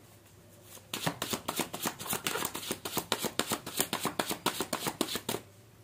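A deck of oracle cards being shuffled by hand: a quick, continuous run of card flicks starting about a second in and stopping shortly before the end.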